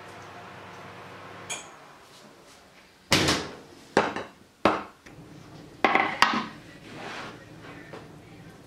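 Metal loaf tin set down on a cast-iron trivet with several sharp knocks and clanks, then a wooden cutting board put down on a wooden counter.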